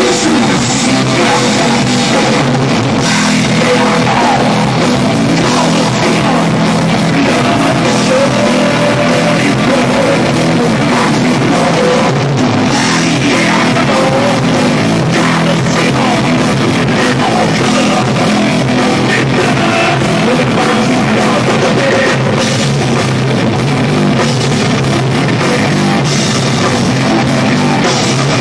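Heavy rock band playing live: bass guitar and electric guitar over a drum kit, loud and unbroken, in a harsh amateur recording with little deep bass.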